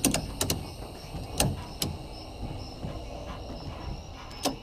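Scattered sharp clicks and knocks of a tie-down strap's metal hook and buckle being handled and tightened against a pickup truck bed, a cluster near the start and single clicks later. A faint, steady chirping of night insects runs behind.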